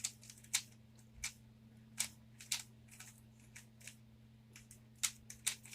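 Rubik's Cube layers being turned by hand: a string of sharp plastic clicks at irregular intervals, about one every half second, over a faint steady low hum.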